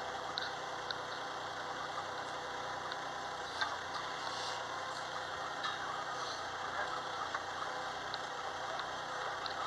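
Steady mechanical hum of a play excavator's motor running, with a few light clicks.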